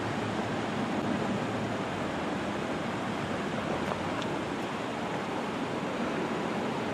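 Steady rushing noise of road traffic passing over the grade crossing, with wind on the microphone.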